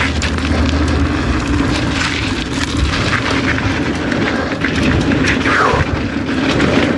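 Santa Cruz Hightower LT mountain bike descending dirt singletrack at speed: tyres rolling over packed dirt and loose rock, with frequent clicks and knocks from the bike over bumps, under heavy wind noise on the camera microphone. A brief falling squeal sounds a little past halfway.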